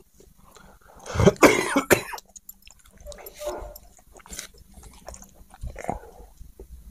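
A person coughing: one loud cough burst about a second in, followed by a few fainter short sounds.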